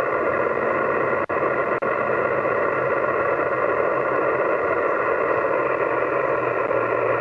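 Yaesu FT-991A HF transceiver receiving on 20 meters upper sideband: a steady, loud hiss of band noise cut off above about 3 kHz, with two very brief dropouts a little over a second in. It is the sign of rough band conditions, with any reply buried in the noise.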